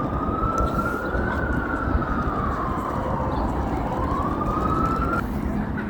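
Emergency vehicle siren wailing, its pitch slowly rising and falling, over steady low background noise; the siren cuts off suddenly about five seconds in.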